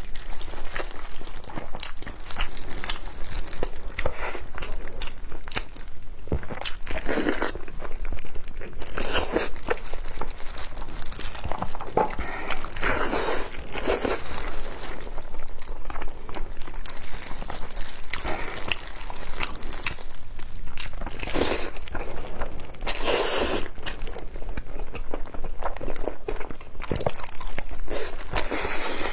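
Close-miked eating sounds: plastic gloves crinkling as hands tear apart braised pork knuckle and lettuce, with crunching bites and chewing. Sharp clicks run throughout, with louder bursts every few seconds.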